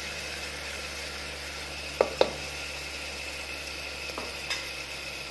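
Sliced onions frying in oil and ghee in a pressure cooker: a steady sizzle, with two sharp knocks about two seconds in and a couple of lighter clicks later.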